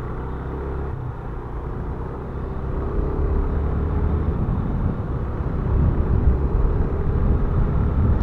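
Yamaha Fazer 250's single-cylinder engine pulling hard as the motorcycle accelerates, with wind rush on the microphone growing louder as speed builds.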